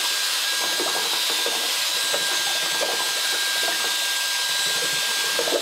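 Electric drill running steadily at speed, spinning a stainless steel Cyklone paddle mixer through a tub of paint, with a constant high whine from the drill.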